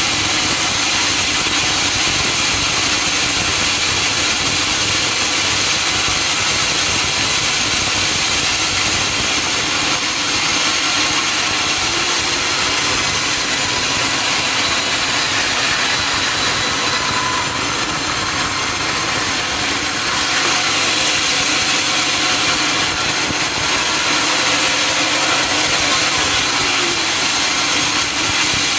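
Sawmill saw and its engine running steadily and loudly, cutting timber.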